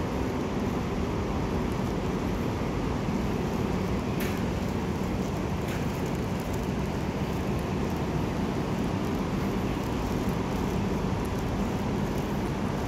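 Steady low rumble with a faint hum, the background noise of a large railway station hall, with a couple of faint ticks around the middle.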